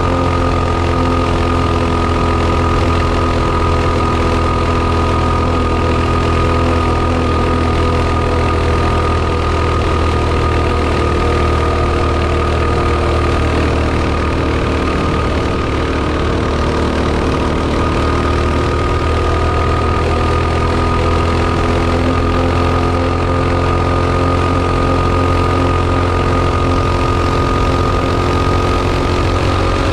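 Mini bike's small engine running at a steady, nearly constant pitch as the bike cruises down the road. It is on a test pass with its carburetor's main jet drilled out to 0.050 in, because it had been running way lean.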